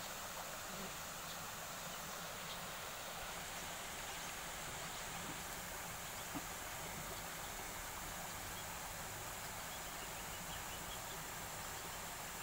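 Steady outdoor background with a high, even insect drone over a soft hiss, and one faint knock about six seconds in.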